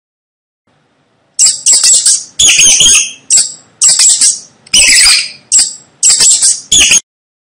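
Mouse squeaking: a quick series of about nine shrill, short squeaks, starting about a second and a half in and stopping shortly before the end.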